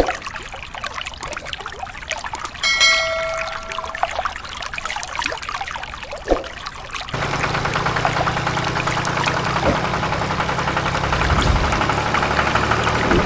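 Water from a mini water pump's pipe pouring and splashing into a flooded patch of sand, with a brief ringing tone about three seconds in. About seven seconds in, a small motor starts and runs steadily with a low hum and fast ticking: the DIY mini tractor's motor, the tractor stuck in wet mud.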